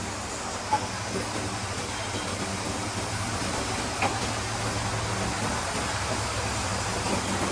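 CNC servo stirrup bending machine running with a steady hum, with a faint click about a second in and another short tick about four seconds in.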